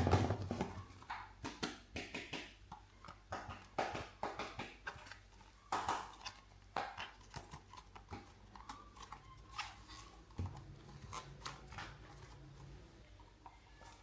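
Hands handling small objects, with irregular clicks, taps and rustles. They are busiest at the start and thin out towards the end.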